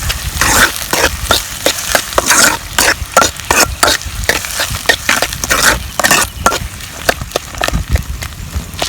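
Sliced onions frying in hot ghee in a kadai, sizzling, while a spoon scrapes and stirs them round the pan in quick, irregular strokes.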